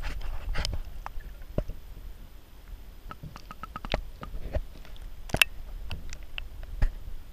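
Underwater sound: a bubbly splashing rush in the first second, then scattered sharp clicks and knocks, the loudest a little past halfway.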